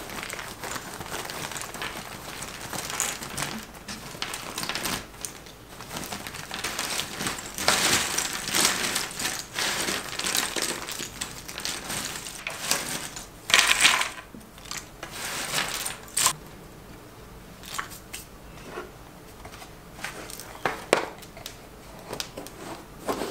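Cardboard jigsaw puzzle pieces clattering and rustling under the hands as a finished puzzle is rolled up, broken apart and scooped into a pile on a table. The clatter is busiest in the middle and thins to a few scattered light knocks near the end as the pieces go back into the box.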